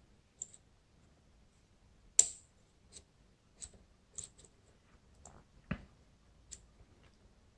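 Light, irregular metallic clicks, about ten of them, the sharpest about two seconds in, from a rotor lock pick being turned and probed through the pin stack of a Dom ix Saturn lock under tension while checking for binding pins.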